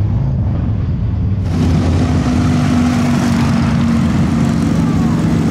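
Motorcycle engines running with a dense low rumble; about a second and a half in the sound grows brighter and fuller, with a steady hum over the top.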